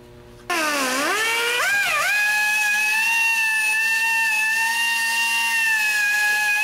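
Pneumatic grinder with a grinding pad, dressing the exhaust pipe's flange mating surface smooth for a new gasket. It starts suddenly about half a second in and dips and climbs in pitch as it bites, then holds a steady high whine.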